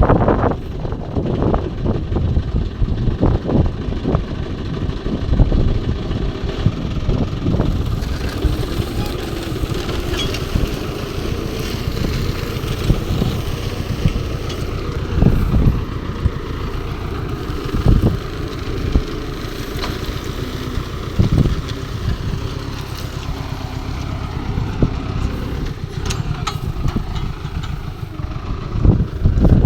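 New Holland TT75 tractor's diesel engine running steadily while pulling a plough, with a few short, louder low bumps now and then.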